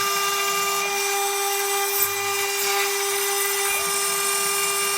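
Home-made CNC router's high-speed spindle running at a steady speed, cutting aluminium, with a constant high whine. A brief sharp tick comes about two seconds in.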